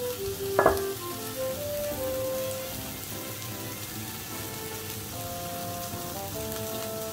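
Sliced meat sizzling on a tabletop yakiniku grill plate, a steady hiss, with one sharp tap less than a second in.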